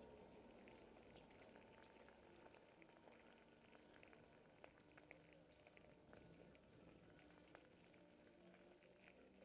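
Near silence: a faint, muffled crackling with a few soft clicks.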